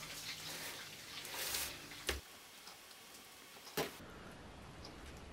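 Quiet kitchen handling sounds of bowl, utensils and baking tray, with two short sharp clicks, about two seconds in and again near four seconds.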